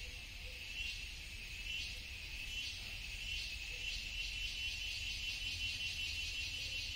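Insects chirring steadily in high, shimmering tones with a faint pulsing rhythm, over a low steady rumble on the microphone.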